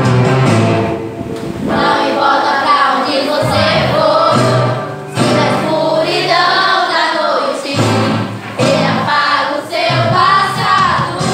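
A child's voice singing a Christian worship song into a microphone over steady instrumental accompaniment, phrase after phrase with short breaths between.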